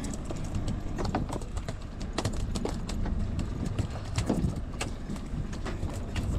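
Freshly landed mahi-mahi thrashing on the boat deck: a rapid, irregular run of knocks and slaps over a steady low rumble.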